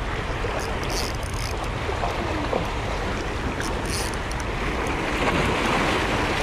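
Steady wind noise on the microphone over waves washing against shore rocks, with a few faint ticks.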